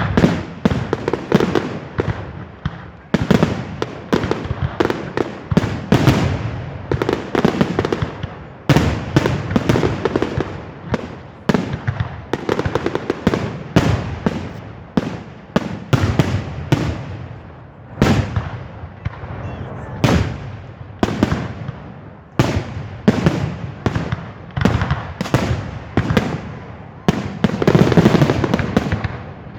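Fireworks display: a rapid, continuous barrage of loud bangs and crackles from exploding aerial shells, each echoing away, several a second with no pause.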